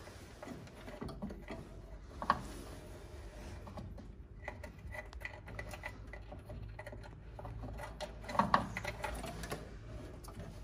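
Scattered light clicks, taps and knocks of hand work on a car, tools and parts being handled, with one sharper knock about two seconds in and a louder cluster of knocks near the end.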